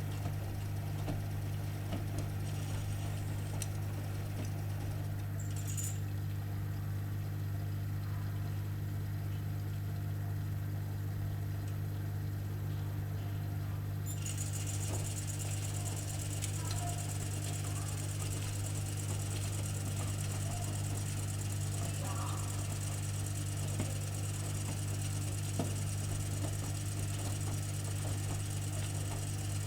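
AEG Öko-Lavamat 85769 washing machine running mid-programme with a steady low hum. A higher hiss joins about halfway through and carries on, with a few faint ticks.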